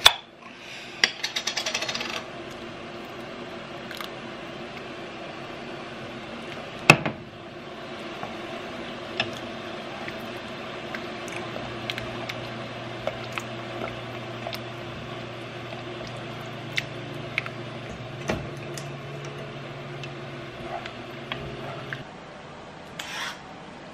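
A wooden spoon stirs a thick meat-and-tomato sauce in an enamelled cast-iron pot, with light scrapes and scattered clicks against the pot, a quick run of clicks near the start as tomato sauce goes in from a bottle, and a sharp knock about seven seconds in. Near the end, a hand peeler scrapes along a carrot.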